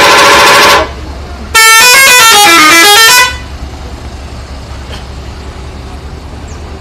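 Indonesian 'telolet' bus horn, very loud: a steady blast of about a second, then after a short pause a longer melodic run of stepped notes that fall and then climb again. A steady low rumble continues underneath and after.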